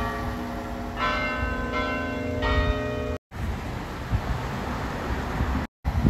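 Church bells in an open-frame tower ringing, struck several times with the tones ringing on between strikes. About three seconds in they cut off sharply, giving way to steady outdoor background noise.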